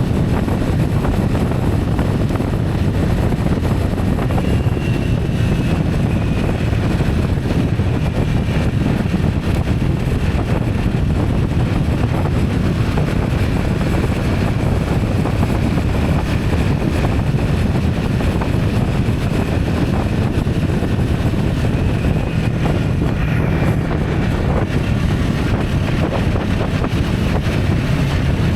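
Steady wind noise on the microphone over the low rumble of a moving vehicle, with a faint thin whine in the background for much of the time.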